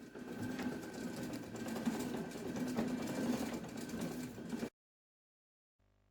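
A small motor or machine running steadily with a low, even drone, cut off abruptly near the end and followed by silence.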